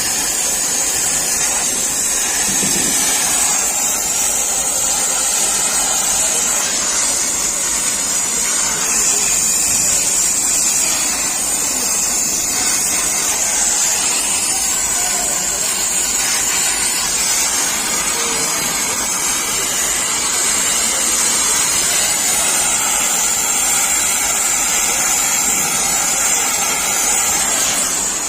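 Oxygen brazing torch flame hissing steadily while copper refrigerator pipe joints are brazed with silver rod; the hiss cuts off suddenly at the end.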